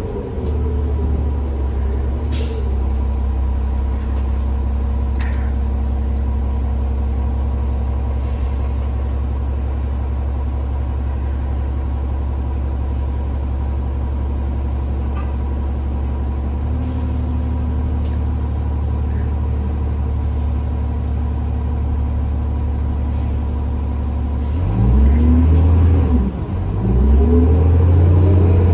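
Cummins ISL diesel engine of a New Flyer D40LF transit bus, heard from inside the cabin, running at a steady idle, with a sharp click a couple of seconds in. Near the end the engine revs up as the bus pulls away, its pitch rising, dipping as the Allison automatic transmission shifts up, then rising again.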